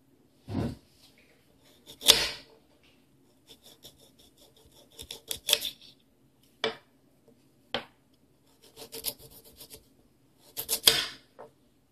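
Knife sawing through a raw carrot on a stone countertop: irregular runs of short scraping strokes, with several louder scrapes and knocks of the blade.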